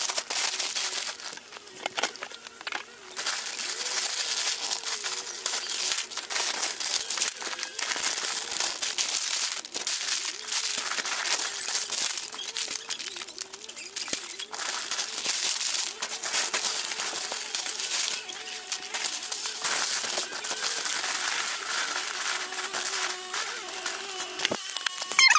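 Small plastic candy wrappers (fun-size Skittles, Sour Patch Kids and Airheads packets) crinkling and rustling continuously as handfuls are dumped and packed into a wire basket, with a brief lull a couple of seconds in.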